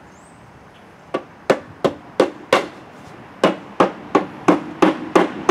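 Hammer knocking a wooden 1x12 shelf board into a tight router-cut dado, about three blows a second: five blows starting about a second in, a short pause, then another steady run of blows.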